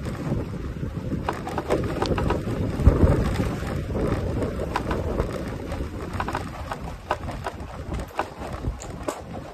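Wind rumble on the microphone with many scattered sharp clicks and taps; the rumble eases off after about six seconds.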